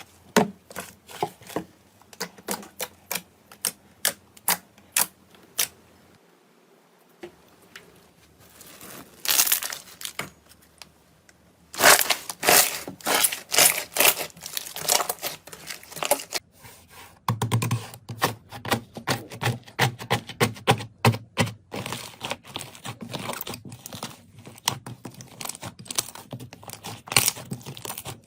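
Slime being squeezed and poked by hand, giving runs of sharp pops and crackles, quieter for a few seconds about a third of the way in and denser and louder in the second half.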